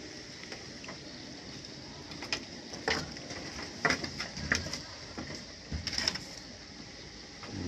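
Scattered light knocks and clicks as Etawa goat kids nose and push against the bamboo slats of their pen, irregular and a few seconds apart, over a faint steady background.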